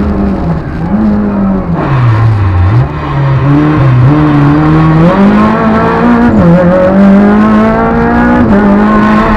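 Renault Clio Sport rally car's four-cylinder engine heard from inside the cabin under hard driving: the revs drop as the car slows for a bend about two seconds in, then climb again in steps, with brief dips at each gear change, as it accelerates away.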